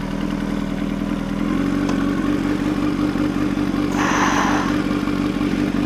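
Honda CBR1000RR's inline-four engine running at low revs as the bike rolls slowly, its note rising slightly about a second and a half in. A brief hiss comes about four seconds in.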